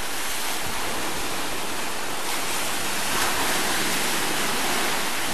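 Sea surf breaking on a sandy shore, with foam washing up the sand: a steady rush that swells a little in the middle as a wave breaks.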